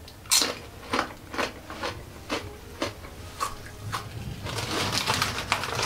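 A bite into a dense kettle-cooked potato chip, a sharp crunch, followed by crunchy chewing at about two crunches a second.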